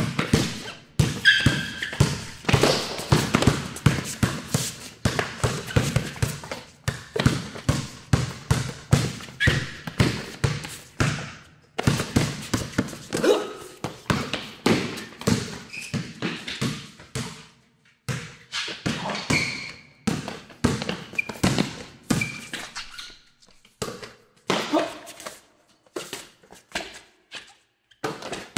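A basketball being dribbled and bounced hard on a court floor, a quick train of bounces about two to three a second that comes in runs with short pauses and thins out near the end. A few short high squeaks cut in between the bounces.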